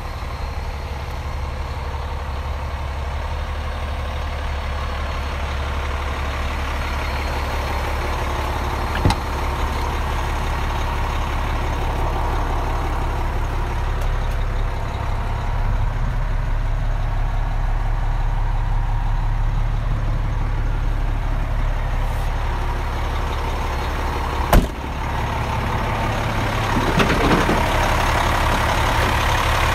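Heavy diesel engine of a 2007 International 8600 semi tractor idling steadily, growing slowly louder. Two sharp knocks cut across it, a small one about nine seconds in and a louder one a few seconds before the end.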